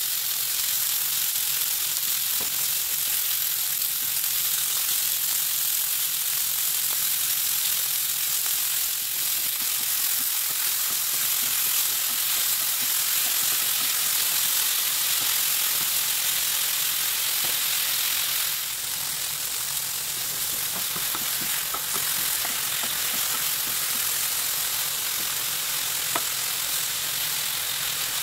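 Food frying in oil in a pan: a steady sizzle that eases a little about eighteen seconds in, with a few light clicks later on.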